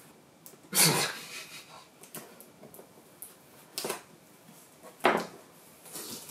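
Cardboard box being handled and opened: four short scrapes and rustles of cardboard, the loudest about a second in.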